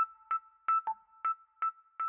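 Background music: a light melody of short, repeated notes bouncing between two pitches, about four notes a second.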